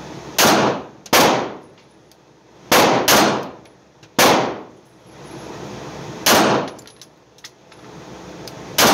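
Arex Delta L Gen 2 9mm pistol firing 124-grain rounds in an indoor range: about seven loud shots at uneven spacing, each with a short echo. A few faint small clicks fall between the later shots.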